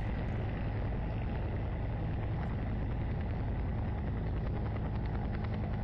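Light aircraft engine, the Cessna 120's four-cylinder Continental C-85, running steadily at high power during a go-around.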